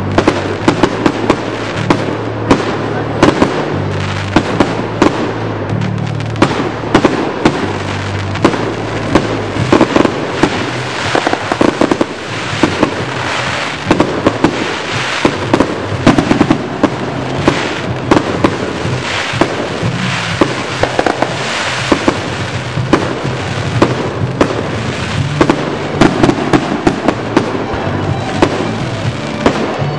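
Aerial fireworks shells launching and bursting in a rapid, unbroken string, with sharp bangs several times a second.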